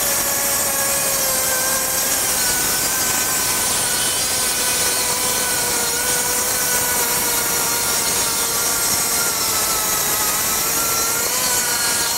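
Makita 40V XGT brushless 7-1/4-inch rear-handle circular saw cutting full depth through a stack of five 1/2-inch OSB sheets, about 2.5 inches thick. The blade runs steadily under heavy load, its pitch sagging slightly now and then as the motor works.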